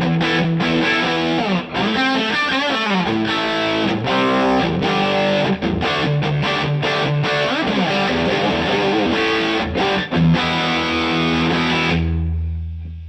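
Electric guitar played through a DVII guitar amplifier with a distorted tone: sustained chords and single notes with slides and bends. About twelve seconds in the playing stops, leaving a low ringing that fades out.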